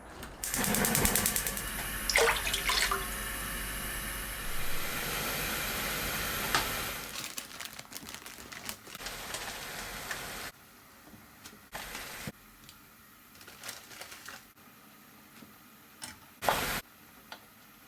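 Water running from a tap for several seconds, then stopping, followed by a few short knocks and splashes.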